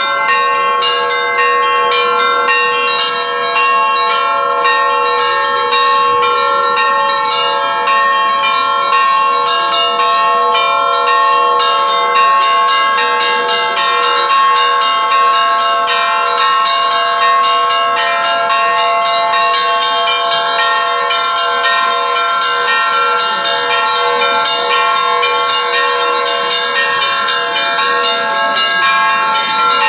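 Russian bells rung in a festive peal (prazdnichny zvon): many small bells struck in quick succession over the steady ringing of larger bells, without a pause.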